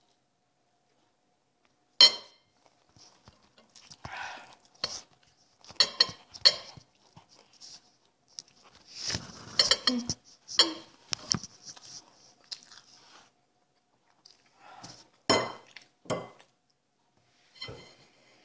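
Fork clinking and scraping on a plate during a meal, in irregular sharp knocks; the loudest clink comes about two seconds in.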